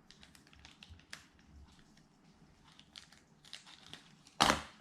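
Paper and plastic packaging rustling and crackling in the hands as an instruction sheet is picked up and unfolded: scattered small crinkles, then one louder rustle near the end.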